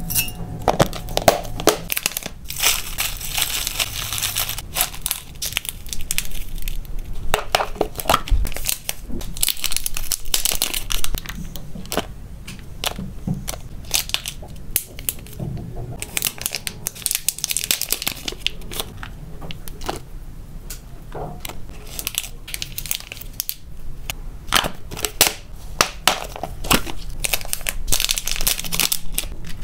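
Crinkling and crackling of clear plastic snack bags being handled and opened, mixed with the rustle and clicks of dried leaf and fruit pieces being picked up with tweezers. The sound is made up of many small sharp clicks and rustling stretches.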